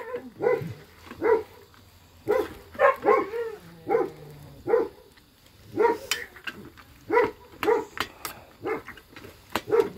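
A dog whining and yipping in short, high, repeated calls, about one or two a second, with brief pauses between bursts.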